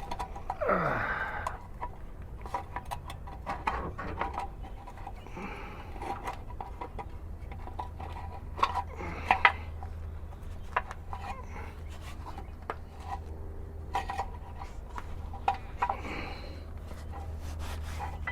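Repeated metal clinks and rattles, with a few scraping sweeps, as the spare tire is worked free of the Ford Expedition's underbody spare-tire hoist cable and hook and pulled out from under the vehicle.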